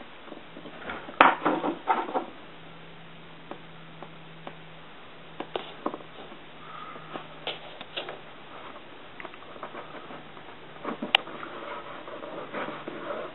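Hands pressing and smoothing plastic tape onto a Corex corrugated-plastic hull and trimming it with a craft knife: scattered light clicks, crinkles and taps. There is a louder cluster of crackles about a second in, a sharp click near the end, and a faint steady hum throughout.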